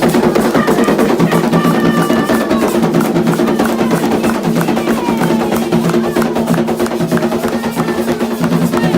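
Candomblé atabaque hand drums playing a fast, steady rhythm with many close-set strokes.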